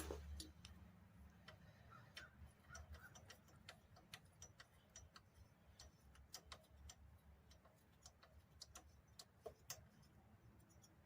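Faint, irregular light clicks and ticks from handling the exhaust pipe and its mounting bolts while snugging them up, over a low background hum.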